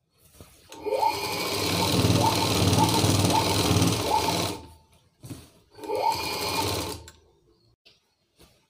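Sewing machine stitching a seam in two runs, a longer one of about three and a half seconds and then a shorter one of about a second, each rising in pitch as it gets up to speed.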